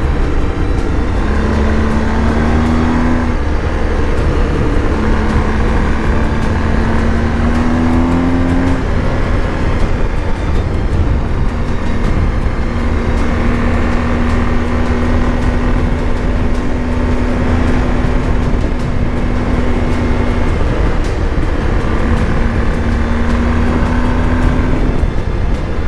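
BMW R 1250 GS Adventure motorcycle's boxer-twin engine running under way, its note holding steady with a few brief rises and drops, over a heavy low rumble.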